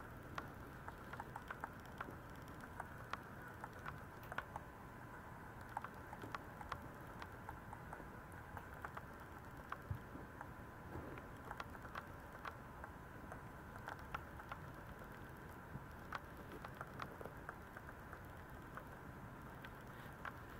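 22-day-old Maltese puppies moving about on a quilted pet pad: faint, irregular little taps, scuffs and clicks of their paws and claws, several a second, with no cries.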